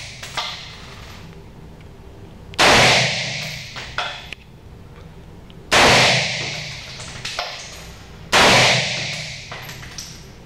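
AR-style rifle fired three times, single shots about three seconds apart, each shot ringing on in a concrete-walled indoor range for over a second. A small click follows each shot.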